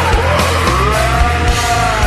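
Slowed-down, pitched-down heavy rock music in screwed and chopped style, with a heavy pulsing bass and a drawn-out pitched line that slides down at the start and then holds.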